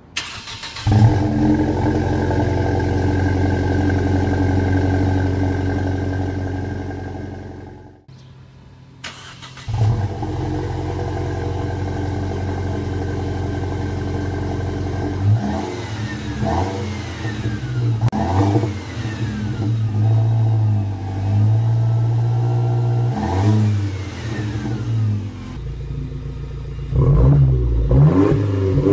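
2012 Mercedes-Benz C250 coupe's turbocharged four-cylinder engine, exhausting through a single Magnaflow 13148 muffler and quad tips. It comes in sharply about a second in and idles steadily, drops out for a moment around eight seconds in, then idles again. Through the second half it is revved repeatedly, rising and falling in pitch.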